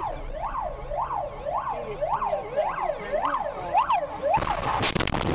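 Ambulance siren wailing, its pitch rising and falling about twice a second. About four seconds in, a sudden loud burst of crunching noise cuts in over it, typical of a vehicle collision.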